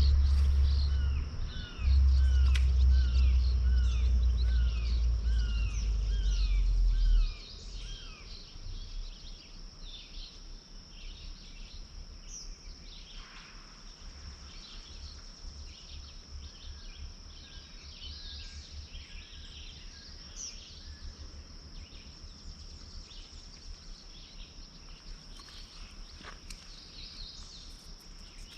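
Birds calling over a steady, high insect drone. For the first seven seconds one bird repeats a short down-slurred note about twice a second, and a loud low rumble runs under it, then cuts off; after that only scattered chirps and the drone remain.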